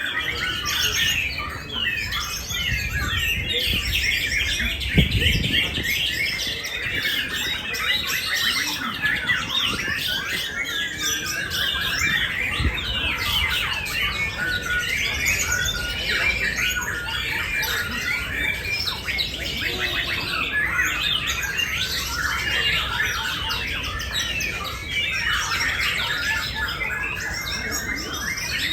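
Many caged songbirds singing at once in a contest round: a dense, unbroken chatter of overlapping chirps and trills. A low thump sounds about five seconds in.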